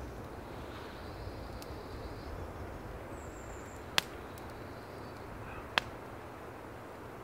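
Two sharp pops from twigs burning in a small metal twig stove, about two seconds apart, over a steady rush of wind.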